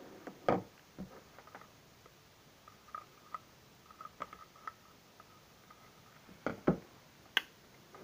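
Handling of a bicycle air horn and its hand pump on a wooden table: scattered knocks and clicks as the parts are picked up and set down, loudest about half a second in and twice near the end, with faint short squeaks in between.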